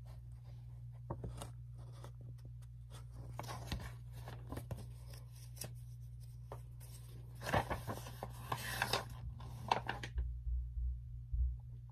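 Rustling and clicking handling noise as a storybook and the recording device are moved about, in scattered bursts that bunch up around the middle and again about two-thirds through, over a low steady hum.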